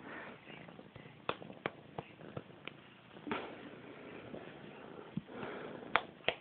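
Fingers flicking a cat's fur over soft rustling: about five sharp taps in quick succession from a little over a second in, and two more near the end.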